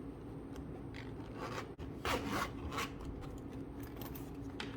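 A leather watch pouch being handled and opened: a few rubbing, scraping strokes, the loudest between about two and three seconds in.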